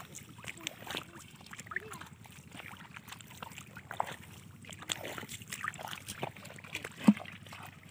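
Footsteps splashing and sloshing through shallow muddy water in an irregular, uneven rhythm, with one louder knock near the end.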